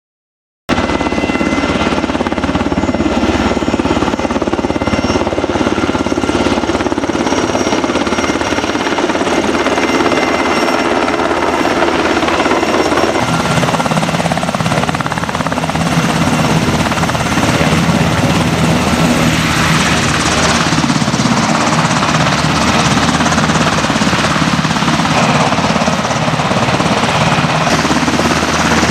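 Sikorsky UH-60 Black Hawk helicopter, its twin turboshaft engines and rotors running loud and steady with a high whine as it descends, hovers and touches down. The low part of the sound changes about halfway through as it settles onto the ground.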